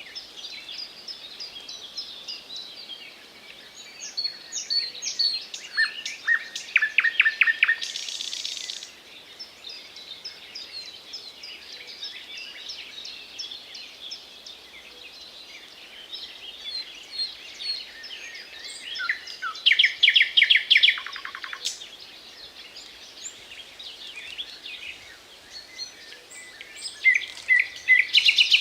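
Nightingale singing loud phrases of fast repeated notes, three bouts separated by pauses of several seconds, one ending in a brief rasping burst. A steady twittering of other small birds runs underneath.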